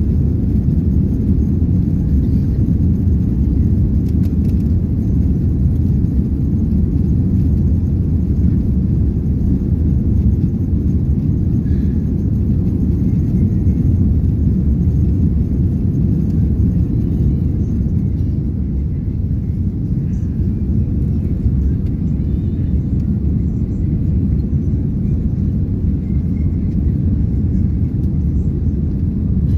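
Steady low rumble of an airliner's jet engines and rushing air, heard inside the passenger cabin during the climb after takeoff.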